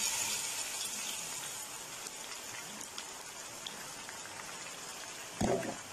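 Coarsely ground masala paste sizzling in hot oil in a frying pan, freshly poured in. The sizzle is loudest at first and dies down steadily. There is a short knock near the end.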